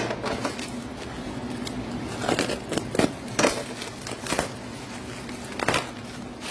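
Plastic wrap and bubble wrap crinkling and crackling in irregular bursts as hands pull and tear it off a wrapped bundle, over a steady low hum.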